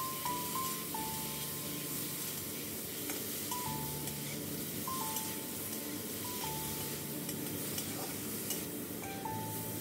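Prawns sizzling as they fry in hot mustard oil in a metal kadai, stirred with a metal spatula that scrapes and ticks against the pan. A soft melody of single notes plays underneath.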